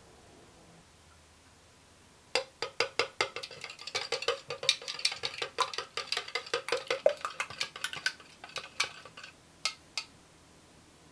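A utensil beating batter ingredients in a bowl, clinking against the bowl in a quick rhythm of about five strokes a second, then slowing to a few separate taps.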